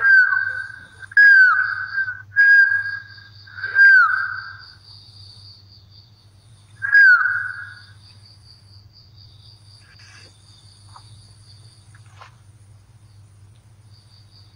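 Five short, loud whistled notes, each held on one pitch and ending in a quick downward slide, come about a second apart at first and then once more after a three-second gap. Behind them a steady, pulsing high insect trill and a low electrical hum run on, with a few faint clicks near the end.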